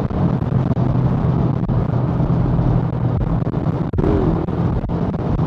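Motorcycle engine running at a steady speed while riding, a constant low hum under the rush of wind on the microphone.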